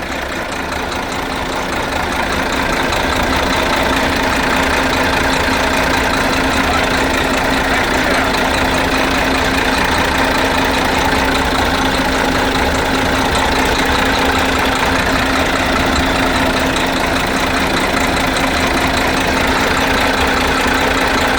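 DAF 95 truck's inline-six diesel engine idling steadily after a full rebuild. It gets a little louder over the first two seconds, then holds an even idle.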